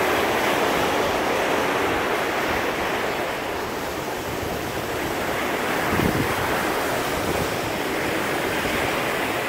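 Steady rush of wind and sea water alongside a cruise ship under way, with wind buffeting the microphone.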